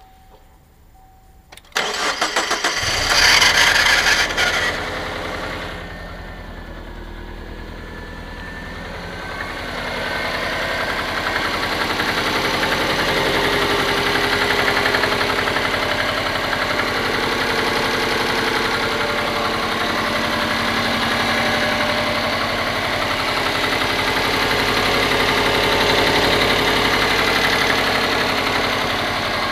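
Subaru Forester's EJ205 turbocharged flat-four being started: the starter cranks briefly, the engine catches with a short rev, and it settles into idle, running a little louder from about ten seconds in. It runs with a knock that the owner cannot place, unsure whether it is the fourth cylinder or something else.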